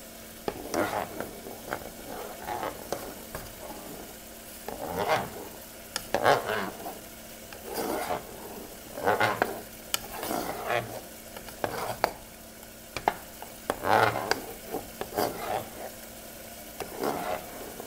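A utensil stirring and mixing mashed potatoes in a nonstick saucepan, with irregular scrapes and soft knocks against the pot.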